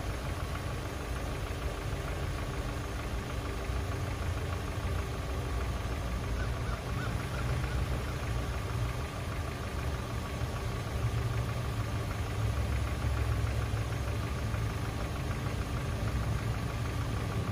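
2007 Kia Optima's engine idling steadily, with a faint steady whine above the low running sound.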